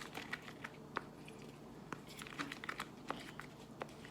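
Faint, irregular small clicks and crackles of a clumpy flour-and-water slime mixture being handled in a bowl.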